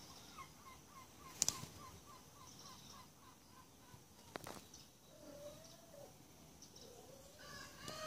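A bird calls a quick series of about a dozen short, falling notes, about four a second, over the first three seconds, with a couple of sharp clicks. In the second half a cat meows, drawn-out calls that grow stronger near the end.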